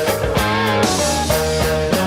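Rock band playing an instrumental psychedelic groove: held electric guitar notes over a steady drum beat of about four hits a second.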